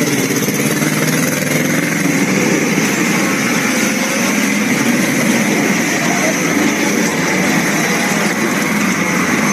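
An engine idling steadily, an even mechanical hum with no change in level.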